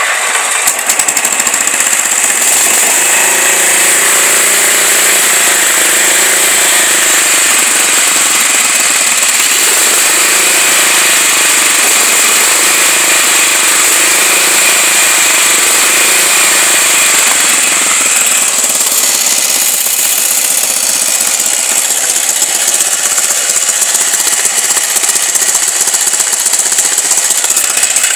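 Riding lawnmower's small gasoline engine, exhausting through a straight pipe, catching suddenly and then running loud and steady.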